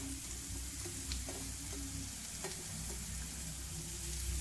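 Sliced onion and green chillies sizzling in hot oil in a pan, stirred with a spatula that clicks and scrapes against the pan a few times.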